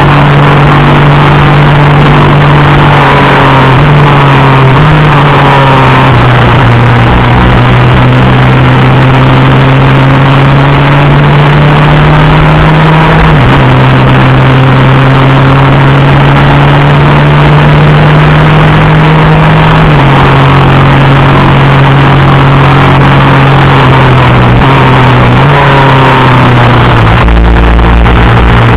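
Superkart's two-stroke engine at racing speed, heard onboard and very loud. Its note climbs slowly and then drops sharply at gear changes, about halfway through and again about two-thirds of the way in.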